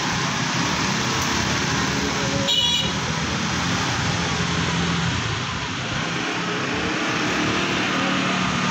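Motor scooters and cars running and passing close by in a steady stream over a railway level crossing. A short high-pitched horn beep sounds about two and a half seconds in.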